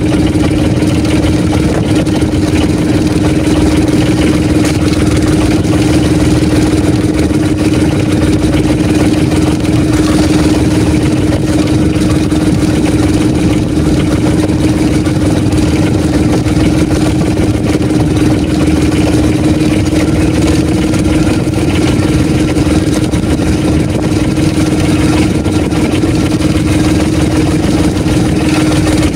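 Engine of a bangka outrigger fishing boat running steadily at constant speed: a loud, unchanging hum.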